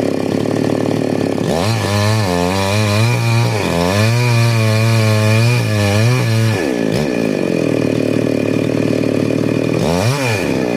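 Chainsaw engine running, revved up for about five seconds with its pitch wavering as it cuts, then dropping back to idle, with one short rev near the end.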